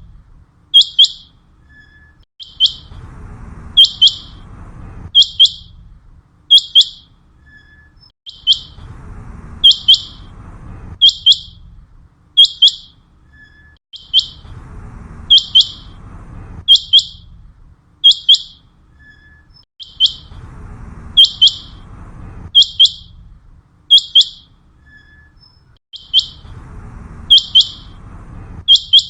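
Common quail calling: short, sharp, high notes in quick groups, repeated over and over without a break. A fainter background rumble comes and goes every few seconds.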